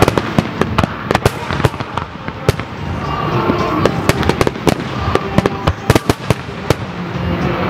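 Aerial firework shells bursting in quick succession: many sharp bangs and cracks, at times several at once.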